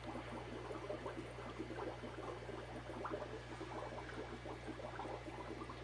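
Aquarium water bubbling and crackling continuously, with a steady low hum underneath.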